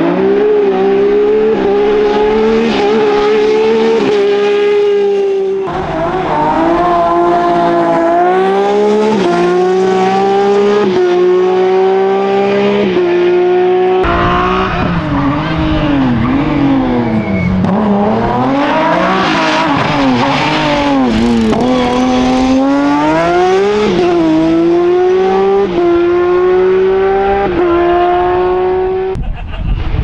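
Rally car engines at full throttle, revving up through the gears: the pitch climbs and drops at each upshift, about every second or two. In the middle the pitch falls and rises again as a car slows and accelerates back out.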